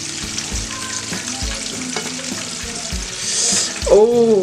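Hot oil sizzling steadily as battered hake fries, with soft low thumps at intervals. A brief louder sliding tone comes about four seconds in.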